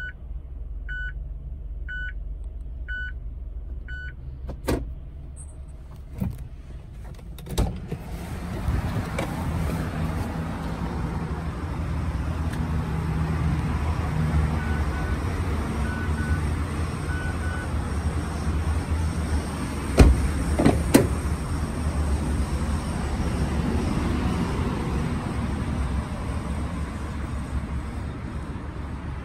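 Mazda Atenza's in-cabin reverse-gear warning beeping about once a second for the first few seconds, over a low steady rumble. Then a few sharp clicks, a steady rustling noise, and two sharp knocks about two-thirds of the way through.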